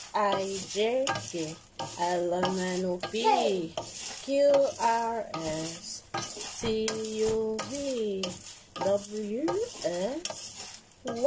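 A long wooden spoon stirring honey-coated popcorn in a metal pot, with rustling and scraping strokes. Over the stirring, a voice sings a tune with held notes and gliding pitch.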